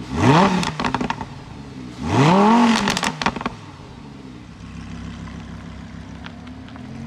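Lamborghini Huracán LP610-4's 5.2-litre V10 blipped twice while standing, each rev rising and falling in pitch and followed by exhaust pops and crackles. It then settles to a steady idle from a little past halfway.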